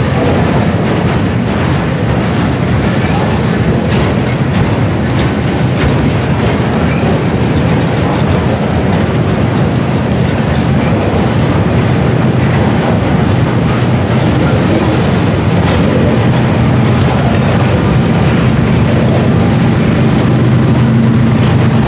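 Freight train's gondola cars rolling past, steel wheels clattering over the rails in a steady clickety-clack. A low steady hum grows in over the last several seconds.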